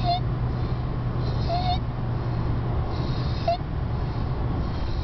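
A two-year-old's stridor from laryngomalacia: a short, high-pitched squeaky crowing noise with breaths, three times, roughly every one and a half to two seconds, over a steady low hum.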